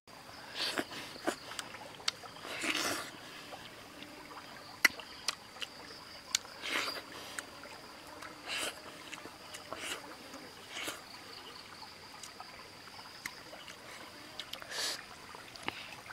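Eating sounds close to the microphone: scattered mouth clicks and short bursts of chewing and of grilled fish being picked apart by hand, over a faint trickling stream.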